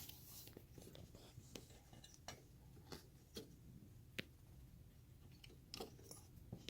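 Faint, irregular clicks and light taps of hands fitting a serpentine belt around the engine's pulleys.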